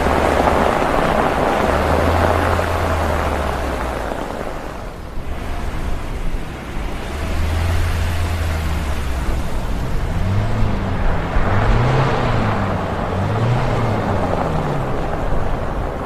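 Taxi driving through a snowstorm: a steady rush of noise over a low engine hum. Near the end, a low tone rises and falls in pitch several times.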